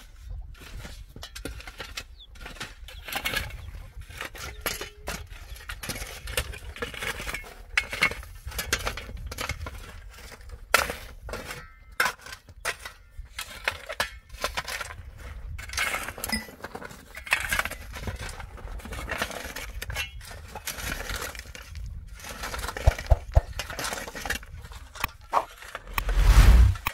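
Metal shovel blade scraping and chopping into stony dirt, with small stones clinking and rattling in irregular strokes. A brief loud low rumble near the end.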